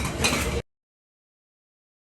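Busy background noise cuts off abruptly about half a second in, followed by dead digital silence.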